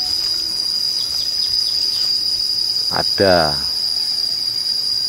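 Insects shrilling in one steady high-pitched tone, with a few faint short falling chirps between one and two seconds in.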